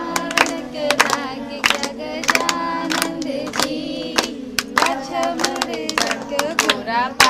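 A group of women and children singing a devotional song together, keeping time with hand claps about twice a second.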